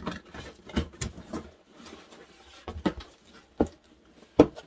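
A cardboard box being opened and handled: several sharp knocks and taps on the cardboard, with paper packaging rustling between them.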